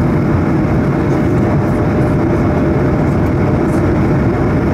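Cabin noise of a Bombardier CS100 (Airbus A220-100) climbing out after takeoff: a steady, loud rush of engine and airflow noise, with a faint steady hum running through it.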